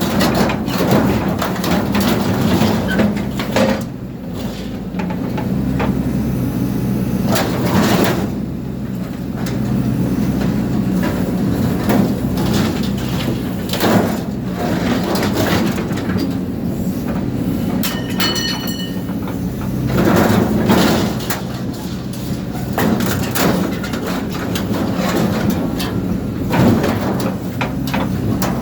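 A motor-driven chopping machine running steadily while it chops material, with frequent sharp cracks and crunches and a brief high squeal about eighteen seconds in.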